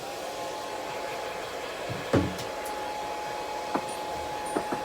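Hair dryer switched on and running steadily, a whooshing hiss with a steady motor whine that rises into pitch as it starts. A single thump about two seconds in and a few light knocks later.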